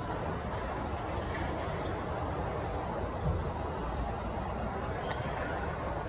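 Steady low outdoor background rumble, with two faint high chirps early on and a single sharp click about five seconds in.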